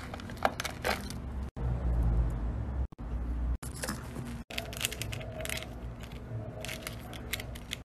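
Fidget toys being handled: scattered small clicks and taps, broken by several abrupt cuts, with a brief low rumble about two seconds in.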